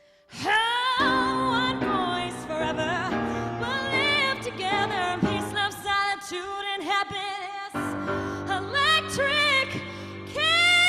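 A woman singing with strong vibrato over piano chords. The voice comes in about a third of a second in, the chords drop out briefly near eight seconds, and a loud held note swells near the end.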